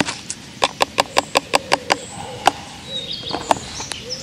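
A quick, even run of about eight sharp clicks, some five a second, then a few single clicks as the angler handles small gear over his bait box; birds call faintly, with a dove cooing near the end.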